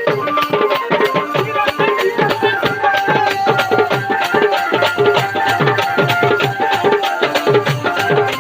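Dholak drumming a fast rhythm, its deep strokes sliding down in pitch, under a held melody on an electronic Casio-style keyboard: North Indian baja band music for dancing.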